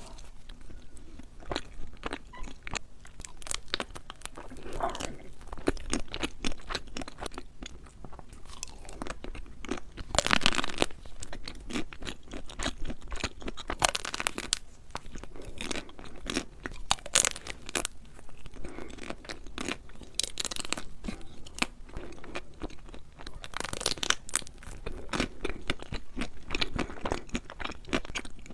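Close-miked crunching and chewing of crisp food: many irregular crunches, mukbang-style eating.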